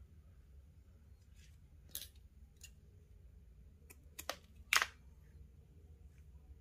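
Small scissors snipping through paracord ends: a few short, sharp snips, the last and loudest about five seconds in.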